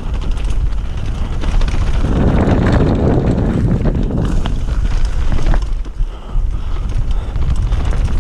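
Loud wind noise on the microphone of a camera riding on a mountain bike going fast downhill, with the bike and tyres clattering over rough trail.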